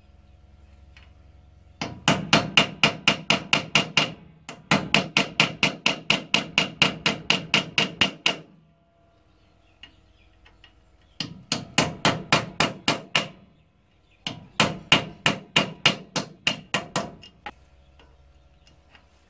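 Hammer rapidly striking a stuck rear brake drum on a 1993 Ford Courier to loosen it from the hub, about five ringing metallic blows a second. There are four runs of blows, with short pauses between them.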